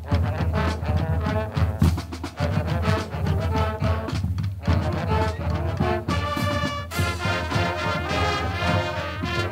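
High school marching band playing while marching: trumpets, trombones and other brass over snare and bass drums. Short punchy brass figures give way to long held chords about six seconds in.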